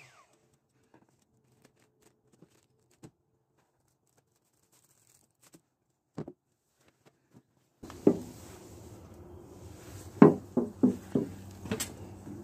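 A random orbital sander on a fibreglass hull cuts off and spins down right at the start, followed by several seconds of near silence with a few faint ticks. About eight seconds in, a low background hum comes up, with a series of sharp knocks and handling sounds.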